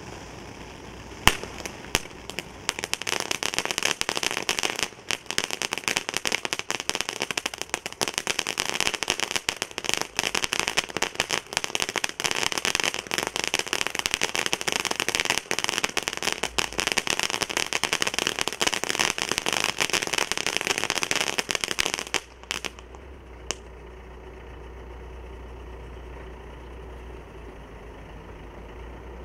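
Ground fireworks fountain spraying with a steady hiss, then from about a second in bursting into a dense crackle of many sharp pops that runs for some twenty seconds and cuts off suddenly as the fountain burns out. One last pop follows, and a faint low hum remains.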